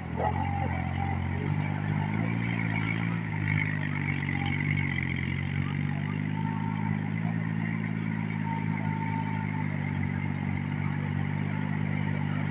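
Mini tractor engine running steadily under load while it pulls a rotavator through wet soil, with its pitch shifting slightly a couple of seconds in.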